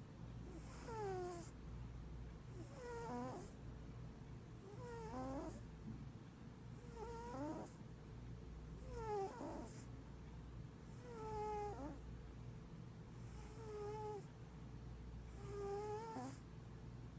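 Maine Coon cat snoring in its sleep: a short breathy hiss and a short whistling note about every two seconds, eight breaths in all.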